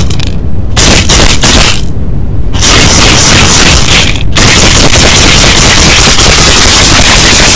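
Maracas shaken very loud into an overdriven, distorted recording with a constant low rumble. There are a couple of separate bursts of rattling with short pauses, then continuous fast shaking from about four seconds in.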